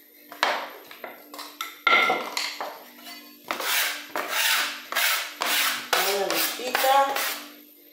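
Metal-bladed spatula scraping across a floured wooden board, gathering up dough scraps. A few separate scrapes at first, then a quick run of strokes, two or three a second, through the second half.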